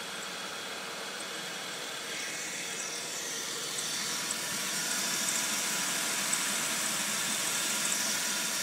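2001 Dodge Intrepid's 2.7-litre V6 idling, heard over the open engine bay as a steady hissing run of engine and belt-driven accessories. It grows a little louder about three seconds in.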